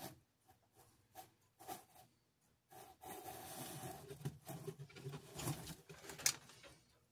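Faint clicks and taps of small tools on the work, then about four seconds of soft hissing and scraping while a wire is fluxed and soldered.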